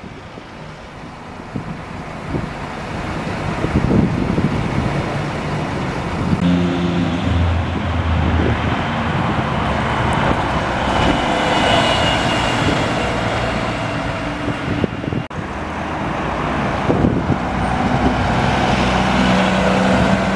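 Road traffic passing close by, heavy diesel vehicles such as buses among it, engines running. Engine tones come through strongly about a third of the way in and again near the end.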